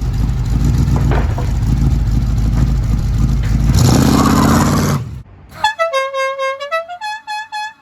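A loud engine running with a low rumble, swelling about four seconds in and stopping a second later. Then a horn sounds a short tune of held notes at changing pitches.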